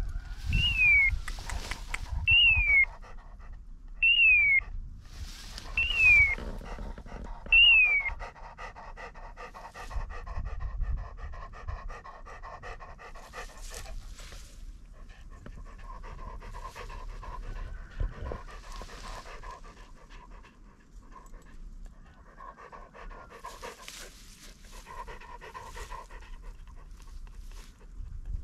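German Shorthaired Pointer panting steadily. Five short, high calls that fall in pitch, about two seconds apart, stand out over the panting in the first eight seconds.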